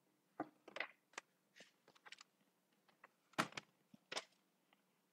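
Faint, irregular clicks and taps of a stylus writing on a tablet screen, the loudest about three and a half seconds in.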